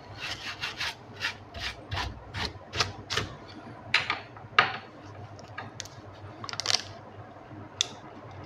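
A small brush scrubbing dust off a laptop's cooling fan and motherboard. The short scratchy strokes come about three a second for the first three seconds, then a few scattered ones.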